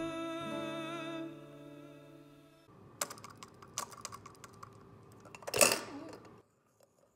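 Background music fading out, then small plastic toys being tapped and knocked about on a hard counter: a run of light, irregular clicks and taps, with one louder clatter a little over five seconds in as a toy is knocked over.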